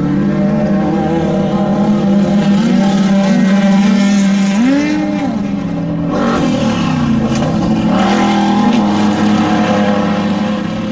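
Off-road desert race vehicle engines running hard, their pitch rising and falling as they rev. About seven seconds in, one engine drops in pitch and then climbs again.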